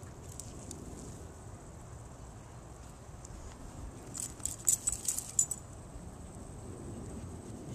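Jingling of a dog's metal collar and leash hardware, a quick cluster of sharp jangles about four to five and a half seconds in, as the German Shepherd moves.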